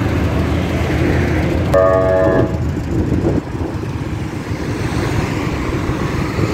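Road traffic passing with a steady rumble, and a vehicle horn honking once, a held multi-tone blast of under a second, about two seconds in.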